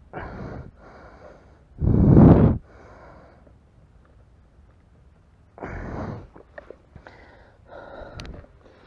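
A man breathing hard in pain from a wasp sting on his heel: a string of heavy gasps and blown-out breaths, the loudest about two seconds in, a pause in the middle, then more breaths.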